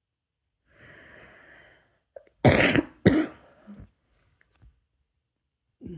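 A person draws a long breath in, then coughs twice hard, about two and a half seconds in, with a short weaker sound trailing after.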